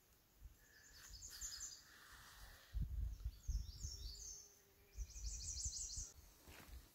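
A songbird singing several short phrases of high, rapidly repeated trilled notes, with low rumbles on the microphone around three and five seconds in.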